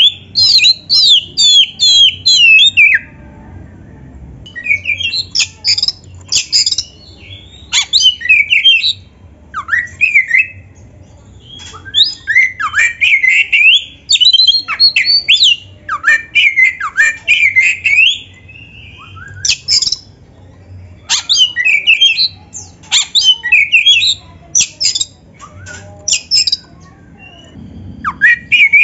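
Oriental magpie-robin (kacer) in full aggressive song: loud bursts of rapid, varied whistled phrases mixed with sharp clicking and harsh notes, each burst lasting a second or two with short pauses between.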